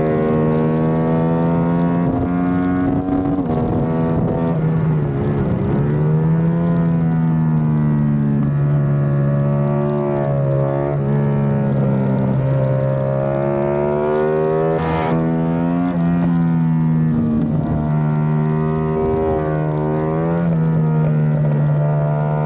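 Yamaha YZF-R7 race bike's 689 cc parallel-twin engine, heard from a camera mounted on the bike, running hard on track. Its note dips and climbs several times as the rider brakes, shifts and accelerates through corners, with a short sharp break about two-thirds of the way in.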